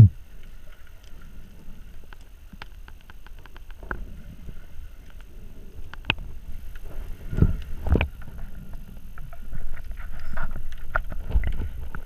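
Muffled water noise against a GoPro's waterproof housing, a low rumble with scattered sharp clicks. A few dull knocks stand out, the loudest right at the start and two more about seven and eight seconds in.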